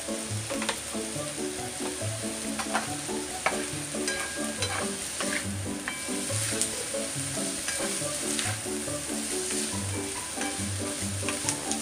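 Chopped onion, sausage and mushrooms sizzling in a hot frying pan while a spatula stirs and scrapes them, with light knocks against the pan. Soft background music with a steady beat plays underneath.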